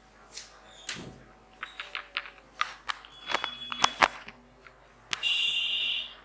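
Scattered sharp clicks and knocks, as of someone moving about and handling small objects, then a steady hiss lasting about a second near the end.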